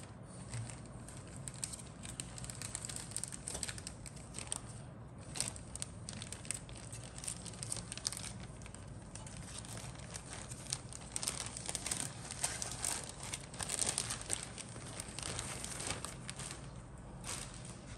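Plastic model-kit sprues being handled and lifted off a cutting mat: irregular rustling and many light clicks of plastic, busiest a little past the middle.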